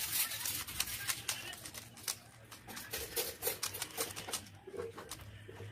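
Plastic Rubik's cube being turned rapidly by hand: a fast, irregular run of clicks, sped up by fast-forwarding.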